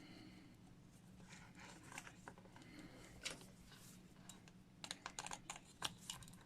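Faint, scattered light clicks and taps of hard plastic action-figure parts being handled, with a quick cluster of clicks about five seconds in.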